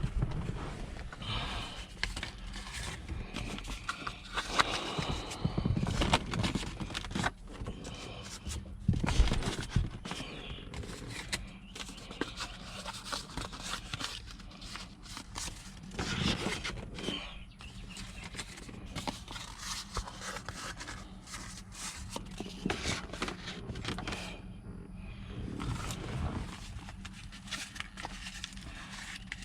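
Irregular knocks, taps and rustles of cardboard pieces being handled and jammed in around a dashboard cover to hold it in place while the silicone sets.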